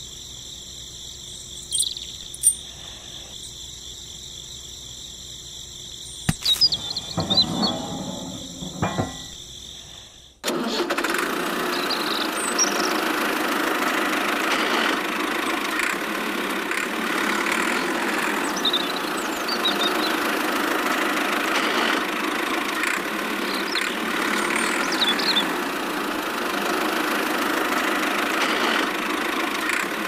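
A small motor running steadily, cutting in suddenly about ten seconds in. Before that there is a faint high whine, a few clicks and a brief rattle.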